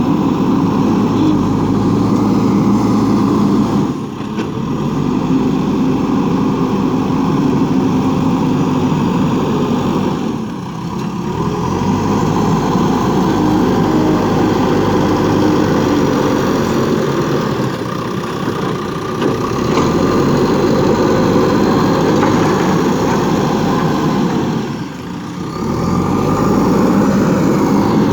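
JCB 3DX backhoe loader's diesel engine running steadily, with three brief dips in loudness.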